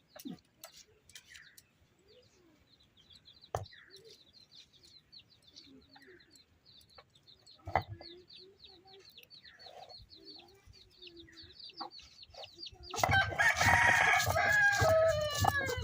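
A rooster crowing loudly near the end, one long call. Before it, a faint, fast run of high chirps and a few scattered knocks.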